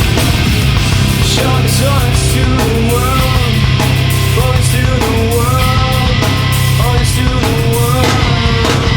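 Nu metal / post-grunge rock music: distorted guitars, bass and drums playing loud and steady, with a melody line that bends up and down in pitch above them.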